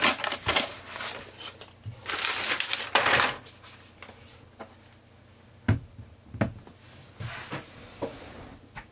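Paper and plastic packaging rustling and crinkling as a MacBook Pro is lifted out of its box. Later come two soft knocks as the laptop is set down on a wooden desk.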